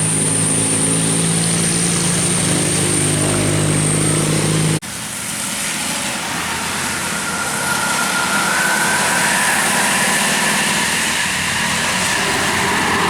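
Large vehicle engine running steadily. About five seconds in the sound cuts abruptly to road-vehicle noise, with an engine whine rising in pitch toward the end.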